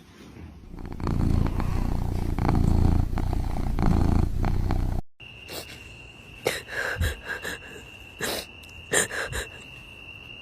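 A cat purring loudly close up, a rapid low rumble that cuts off suddenly about five seconds in. After it come a steady high-pitched tone and scattered clicks and knocks.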